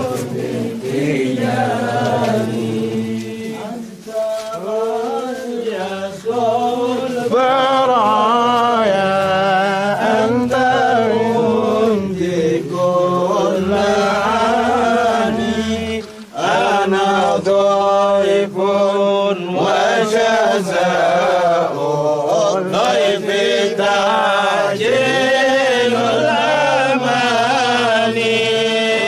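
A group of men chanting together in a Sufi devotional chant, many voices rising and falling in long phrases over a held low note, with a brief breath pause about halfway through.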